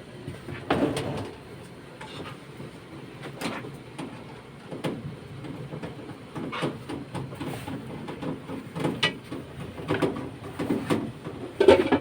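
Irregular knocks, clunks and scrapes of a washing machine's hard plastic and metal parts being handled and moved, loudest about a second in and again near the end.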